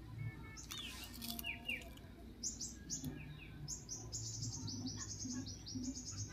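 Bird chirping: a rapid run of short, high, falling notes, about five or six a second, starting a little over two seconds in. A brief hiss comes about a second in.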